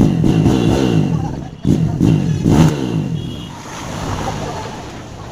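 Motorcycle exhaust (silencer) revved twice in quick succession, then settling back to a lower running sound.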